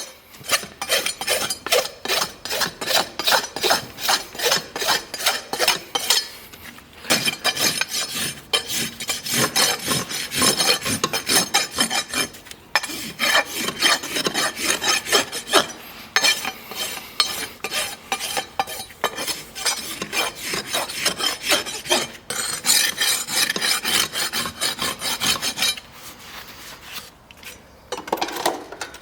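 Farrier's rasp filing a horse's hoof: quick back-and-forth strokes, a few a second, with brief pauses, easing off near the end.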